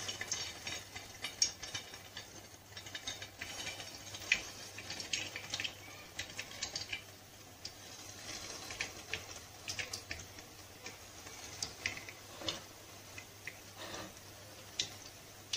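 Potato-stuffed bread rolls deep-frying in hot oil in a kadhai: a steady sizzle with many small crackles and pops as the rolls are lowered in one at a time.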